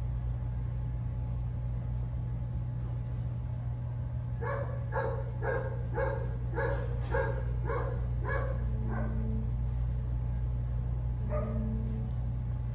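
Rottweiler barking, a run of about nine barks at roughly two a second, over a steady low hum.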